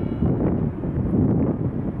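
Wind buffeting the microphone, the loudest sound, with a harbour bell buoy's bell ringing faintly as the buoy rocks, one strike dying away in the first moments.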